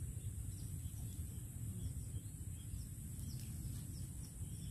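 A steady, high-pitched chorus of insects such as crickets over a continuous low rumble, with a few faint bird chirps.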